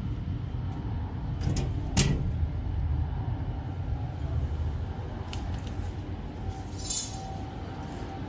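Steady low rumble of a running wire straightening and cutting machine, with two sharp knocks about one and a half and two seconds in and a short rattle near the end.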